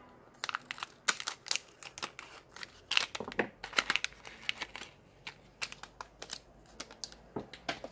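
Metallised anti-static plastic bag crinkling as it is cut open with scissors and handled, a quick run of sharp crackles that thins out after about four seconds.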